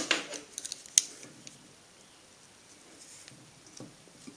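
Light clicks and rattles of small parts being handled: a carbon-brush holder with its coil spring and spade connector being worked out of an angle grinder. The sharpest click comes about a second in, with a few fainter ticks near the end.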